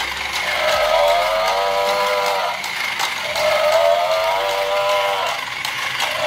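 Battery-operated walking toy cow, its mechanism clicking as it walks, while its speaker repeats a held electronic call about every three seconds.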